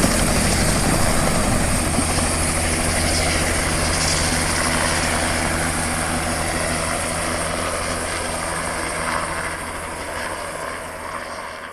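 Helicopter in flight: the steady beat of the rotor and the turbine's noise, slowly growing quieter over the course of several seconds.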